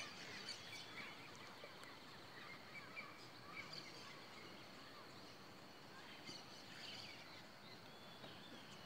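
Faint birdsong: many small birds chirping and calling off and on over a quiet, steady background hiss.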